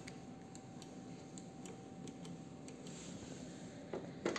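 Handling of a Yamaha MG16XU mixing console: scattered light clicks over a faint steady hum, then two louder knocks near the end as the cable plug in a channel input jack is grabbed.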